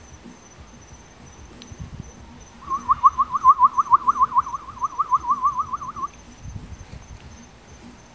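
Crickets chirping steadily. About two and a half seconds in, a loud, fast series of about twenty short notes at one pitch, around six a second, runs for some three and a half seconds, then stops.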